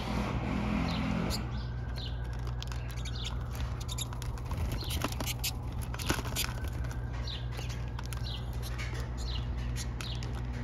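A flock of pine siskins calling, many short high chirps and twitters throughout, with scattered sharp ticks, over a steady low city rumble.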